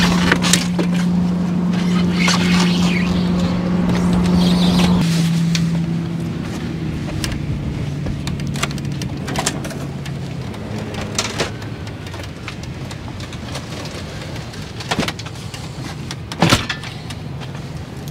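A motor vehicle's steady low drone that drops in pitch in steps about five and seven seconds in and fades away by about ten seconds. A few sharp metallic knocks and clanks follow, the loudest near the end, as a folding electric bike is stowed and secured in the van's rear garage.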